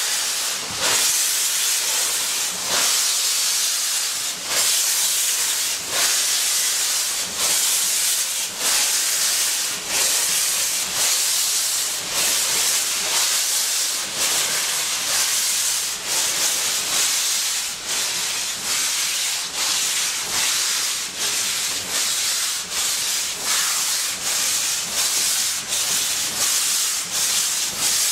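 USATC S160 2-8-0 steam locomotive pulling away, its exhaust beats quickening from about one every two seconds to about two a second as it gathers speed. The beats sit over a loud steady hiss of steam from the open cylinder drain cocks.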